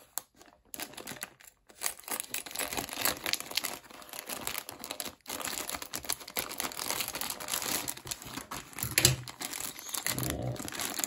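Thin clear plastic bag crinkling as it is handled and cut open with scissors, with a couple of soft knocks near the end.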